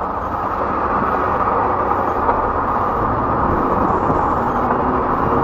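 Steady engine and road noise of a car in slow traffic, picked up by a dashcam behind the windshield, with no distinct events.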